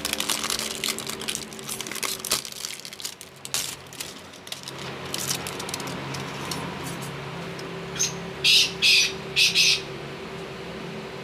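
Clear plastic packaging bag crinkling and rustling as a circuit board inside it is handled, with four short, louder rustles near the end over a faint steady hum.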